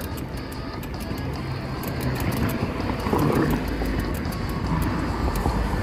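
Street traffic noise with a steady low wind rumble on the microphone of a moving bicycle, with music playing underneath.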